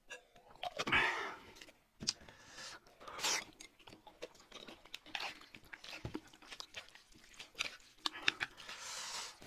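Close-miked eating sounds: sipping from small drink bottles, then chewing and slurping noodles, with many small clicks of chopsticks and dishes.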